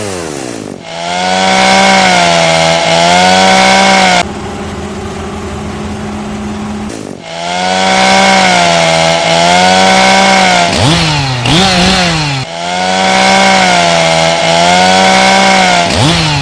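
Two-stroke chainsaw held at high revs in long stretches, its pitch wavering slightly, dropping to a quieter, steadier tone for a few seconds about four seconds in, and revving up and down about eleven seconds in.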